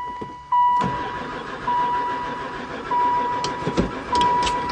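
An old van's starter cranking the engine over, starting about a second in, without it catching: the engine never fires, which the owner puts down to no spark. A dashboard warning chime beeps steadily, about once a second, throughout.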